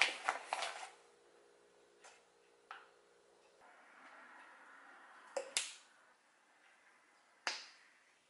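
Dry food pattering into a small ceramic bowl as it is poured from a pouch, a dense rattle of small clicks that thins out within the first second. After it come a few light clicks, a faint pour, and two sharper knocks near the middle and the end as things are handled and set down on the counter.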